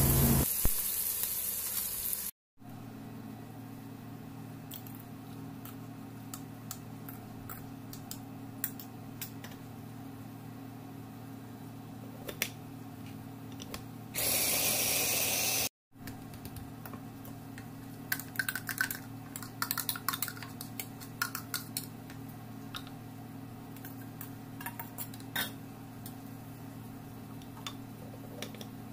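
Chilies, tomatoes and shallots sizzling in hot oil in a wok for about two seconds. Then a low steady hum with scattered clicks and taps of a plastic jar being handled, broken about halfway through by a short burst, under two seconds, of an electric food chopper's blades grinding the fried chilies.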